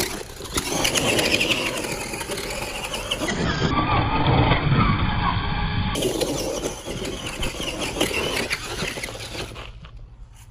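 Radio-controlled monster truck being driven: its motor whine rises and falls with the throttle over a steady rush of tyre noise, dying down near the end.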